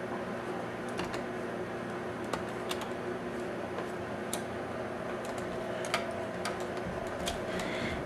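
Scattered sharp clicks and ticks of a hand screwdriver turning a small screw into a Dell Inspiron Zino HD's case, over a steady background hum.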